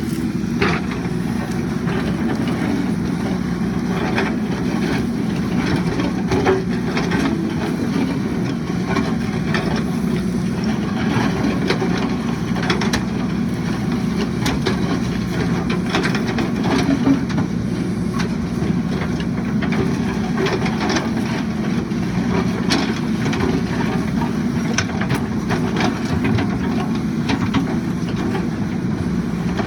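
JCB 3DX backhoe loader's diesel engine running steadily under work, with scattered short knocks and clanks over it.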